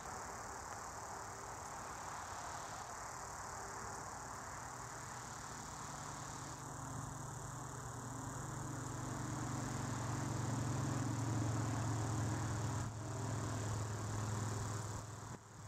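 Motor vehicle noise under steady distant traffic hum: a low engine hum builds over the second half as a vehicle draws close, then falls away near the end.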